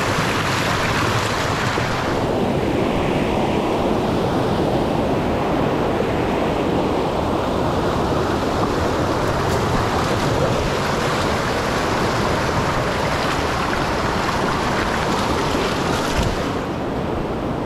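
River rapids rushing over boulders: a loud, steady noise of running water. The hiss in it thins out about two seconds in.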